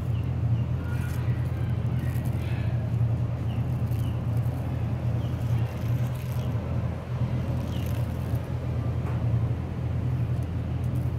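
Steady low mechanical hum, like an engine or traffic, with faint short high chirps every second or two.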